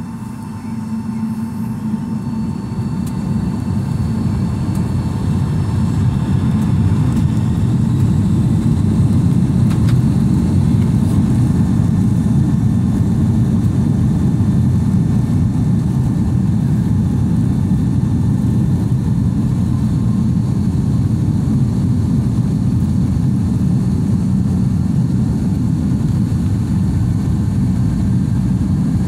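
Boeing 757 jet engines and the airliner's rumble heard from inside the cabin, growing louder over the first several seconds, then holding at a steady deep roar as the plane rolls along the ground.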